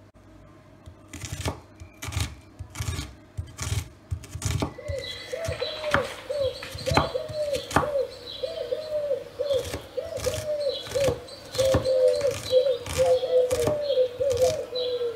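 Kitchen knife chopping onion on a wooden cutting board, with sharp knocks of the blade on the board about one or two a second. From about five seconds in, a bird calls over and over in the background.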